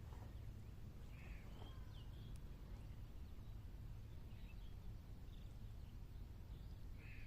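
Faint outdoor ambience: a low steady rumble with a few short, high chirps scattered through it.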